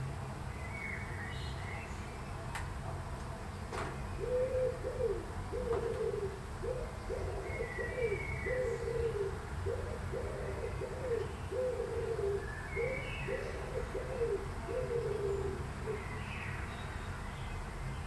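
Common wood pigeon singing its cooing song: low coos in a rhythmic, repeated phrase, starting about four seconds in and stopping about three seconds before the end. Small birds chirp faintly and high in the background.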